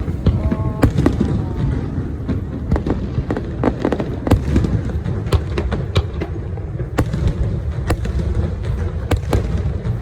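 Aerial fireworks bursting in quick succession: deep rumbling booms overlapping with many sharp cracks and crackling pops.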